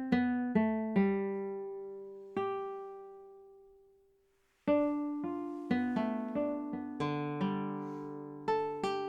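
Music on a plucked acoustic string instrument: a few slow single notes that ring out and fade, a pause of about a second, then a quicker picked pattern starting about four and a half seconds in.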